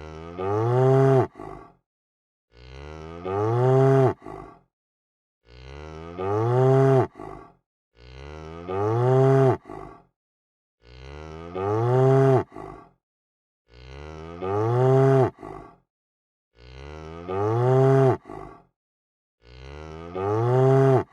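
A cow mooing, the same long moo repeated about every three seconds. Each moo starts softly, swells, and rises then falls in pitch.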